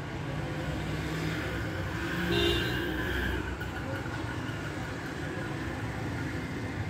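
Steady rumbling background noise, like distant traffic, swelling briefly about two and a half seconds in.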